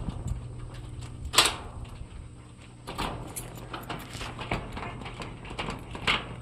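A few sharp knocks and rattles, the loudest about one and a half seconds in, over a steady low hum.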